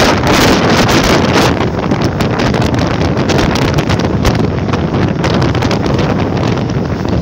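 Heavy wind buffeting the microphone, held out of a passenger train running at full speed, with the train's running noise underneath.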